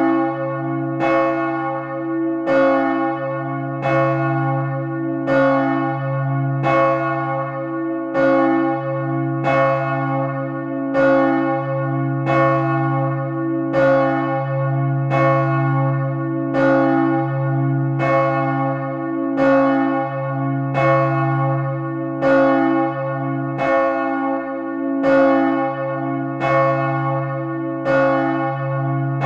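The great 1502 Van Wou church bell, a 2145 kg bronze bell tuned to C-sharp and hung on a cranked yoke, swinging in full peal. Its clapper strikes in a steady even rhythm, and each stroke rings on into the next over a deep, sustained hum.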